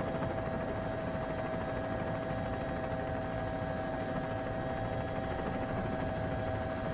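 Steady distant mechanical drone with a constant whine over it, unchanging throughout.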